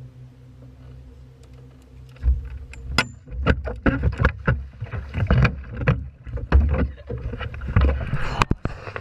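A steady low hum, then from about two seconds in a rapid flurry of knocks, thumps and splashes in and around a small boat.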